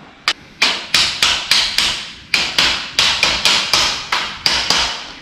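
Hammer tapping connectors down into the metal angles of a slotted-angle shelving rack: about sixteen quick, even strikes, roughly three a second, each with a short metallic ring, with one brief pause partway through.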